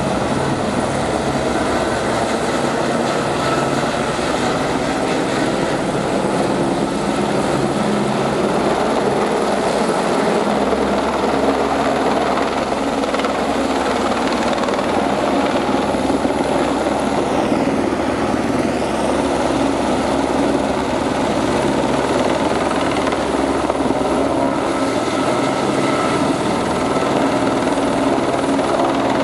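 Eurocopter AS350 Ecureuil single-turbine helicopter flying low overhead with a long line slung beneath it: a loud, steady sound of main rotor and turbine.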